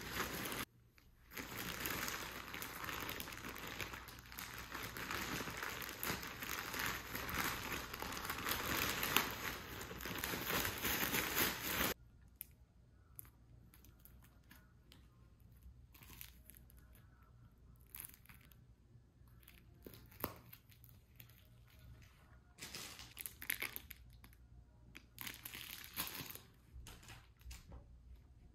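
Plastic mailer bag crinkling and tearing as it is handled and opened, continuous for about the first twelve seconds. After that, quieter scattered crinkles and light taps as small plastic-wrapped items are taken out and set down.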